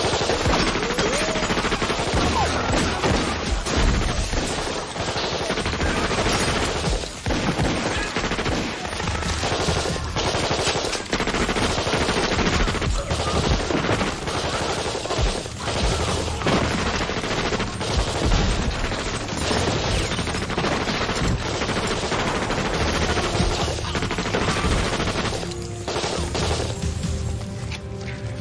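Sustained, dense automatic gunfire from a film shootout, many shots overlapping almost without a break. It dies down near the end.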